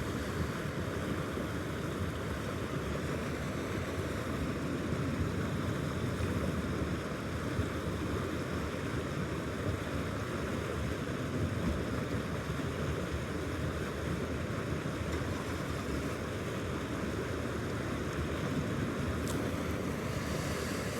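Steady rushing of water pouring into a trout pond at its inlet.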